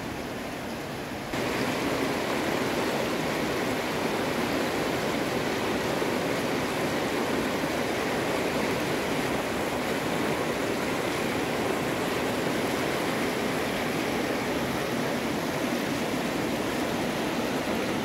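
River rapids: white water rushing steadily over rocks. It gets louder about a second in.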